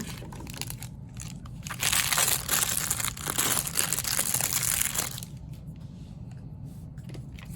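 Plastic toy packaging and small mystery bags crinkling and rustling as they are handled and pulled out of a torn-open box. The crinkling is loudest from about two seconds in to about five seconds in, then drops to faint rustling.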